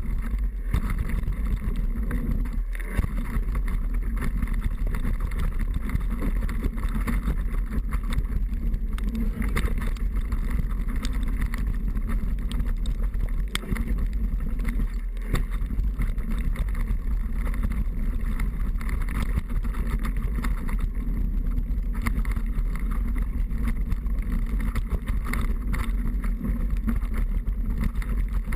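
Downhill mountain bike being ridden: a steady rush and rumble of wind and ground noise, with frequent small knocks and rattles from the rough trail.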